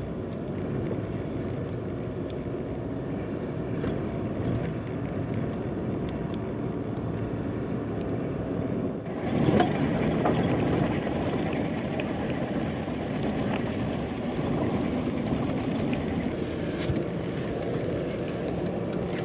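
Truck driving slowly on a rough dirt road, heard from inside the cab: steady engine and tyre noise with a few short knocks and rattles. About nine seconds in, the sound turns abruptly brighter and a little louder.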